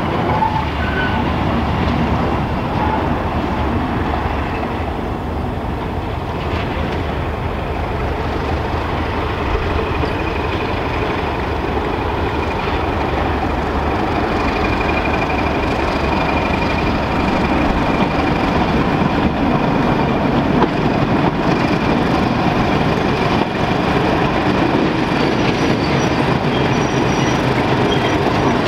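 Class 31 diesel-electric locomotive 31430 approaching at the head of a passenger train. Its English Electric V12 engine runs with a steady low rumble that grows louder as it nears. A thin, steady high squeal of steel wheels on the rails comes in for several seconds midway.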